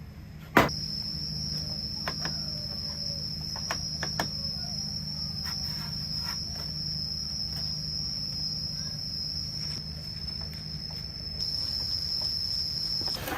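A small electric motor switched on with a click, then running steadily with a high whine over a low hum, cutting off near the end.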